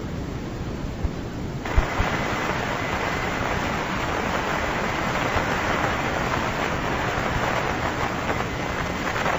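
Radio receiver static: a steady hiss on an old low-fidelity tape of air-ground radio traffic. Just under two seconds in, the hiss jumps louder and brighter as a channel opens, with a faint steady whistle under it.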